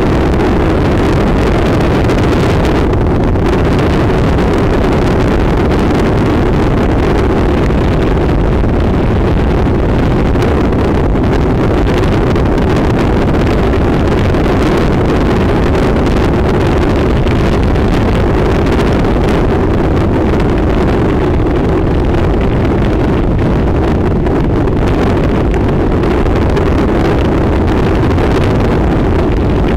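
Honda NC700 motorcycle's parallel-twin engine running steadily while riding, with wind buffeting the microphone.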